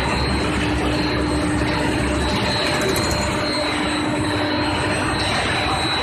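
Steel bar induction heating furnace line running: a loud, steady industrial noise with a constant high-pitched whine, and a fainter lower tone that comes and goes.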